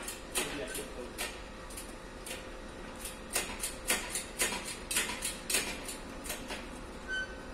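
Hand tools clicking and clinking against metal while the engine is being taken apart in the engine bay: irregular sharp ticks, a few a second. A brief high beep near the end.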